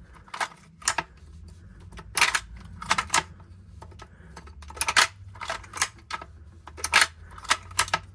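Philips espresso machine brew unit being worked by hand, its plastic parts clicking and clacking irregularly as freshly applied grease is worked into the guide rail.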